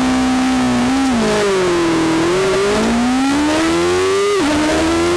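Carburetted pre-injection class racing motorcycle engine heard from on board, held at steady revs for about a second, then revving hard as the bike launches off the start. The pitch climbs and sags as it pulls away, with a sharp drop at an upshift near the end.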